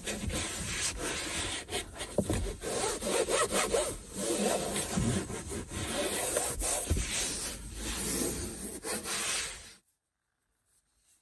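Cleaning cloth rubbing over a car's plastic dashboard in repeated back-and-forth wiping strokes, cutting off abruptly near the end.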